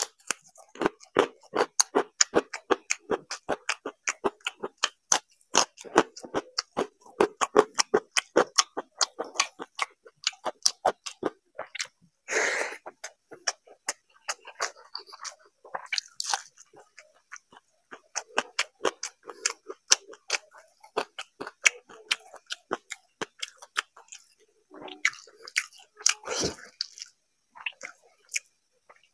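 Close-miked chewing of crisp food, starting with a potato chip: a rapid run of crunches, several a second, with a few louder, longer mouth noises around the middle.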